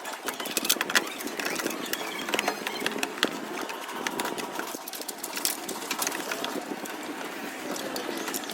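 Rapid, irregular mechanical clicking and rattling over a steady hiss.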